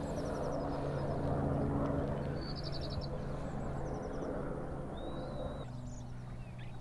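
Outdoor ambience: small birds chirping, with a short trill of quick repeated notes, over a steady low hum.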